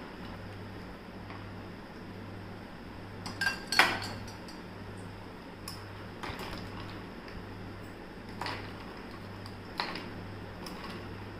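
Metal ice tongs clinking against a ridged glass bowl and ice cubes as ice is picked out: scattered sharp clinks, a cluster of the loudest about four seconds in.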